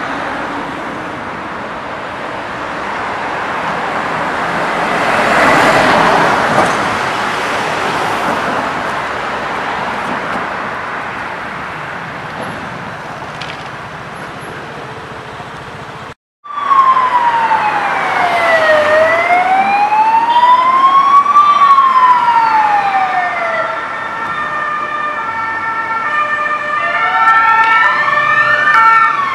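Street traffic noise with a vehicle passing, loudest about six seconds in. After a brief cut, emergency vehicle sirens sound: a wailing tone rising and falling slowly, joined by several more sirens, including a two-tone hi-lo siren, so that they overlap near the end.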